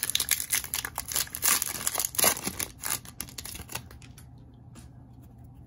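Plastic wrapper of an Optic basketball card pack being torn open and crinkled, a dense crackling for about four seconds before it settles.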